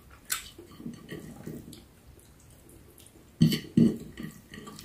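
Close mouth sounds of someone eating juicy ripe mango and rice with the fingers: soft wet chewing and smacking, with two louder wet smacks in quick succession about three and a half seconds in.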